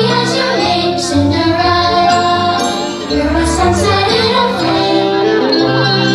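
Fireworks-show soundtrack: orchestral music with a singing voice, loud and steady.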